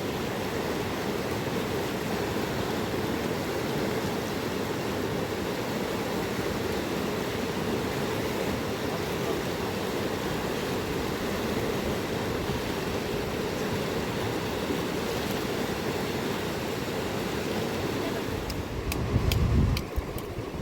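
River water rushing steadily. Near the end, a louder low buffeting and a few sharp clicks break in.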